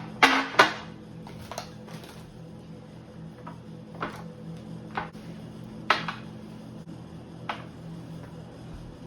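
Food storage containers clattering as they are handled and set down: a quick cluster of sharp knocks in the first second, then single knocks about every second, over a steady low hum.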